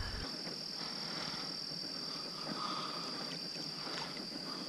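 Steady high-pitched trill of a lakeside chorus of frogs and insects, with a few faint knocks near the end as a paddle is lifted against the aluminium jon boat.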